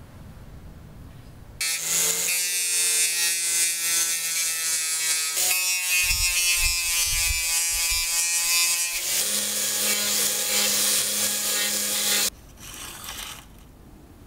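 Small pen-style rotary tool running an abrasive drum against a chrome-plated calendar frame, polishing off rust. The motor whine starts about one and a half seconds in, breaks for a moment about five seconds in, steps up in pitch about nine seconds in, and stops about twelve seconds in.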